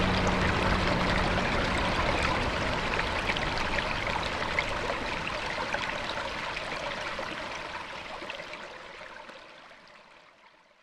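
Running stream water, a steady rush with small trickling splashes, fading out to silence over the last few seconds.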